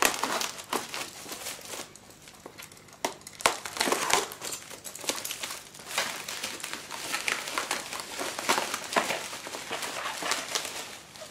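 Plastic bubble wrap being handled and unwrapped by hand: irregular crinkling and rustling with a few sharper crackles.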